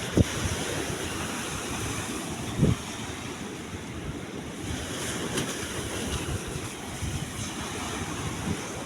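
Open sea wind and waves, a steady rushing with wind buffeting the microphone, and two short low thumps, one right at the start and one about two and a half seconds in.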